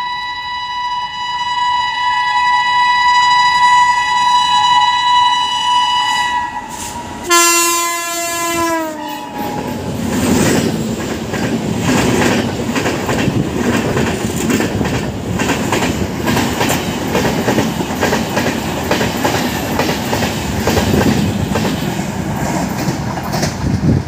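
Train horn of the Bengaluru Uday Express giving a long shrill blast as it approaches, then a second blast that drops in pitch as the locomotive passes at speed. From about ten seconds in, the double-decker coaches rush past, with loud rumbling and wheels clattering over rail joints.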